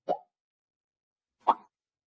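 Two short pop sound effects from an animated subscribe-button overlay, one as the cursor clicks 'Subscribe' at the start and a louder one about a second and a half later as it moves to the bell.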